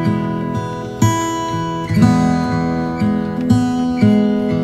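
Background music: acoustic guitar strumming chords, with a new strum about every half second to one second.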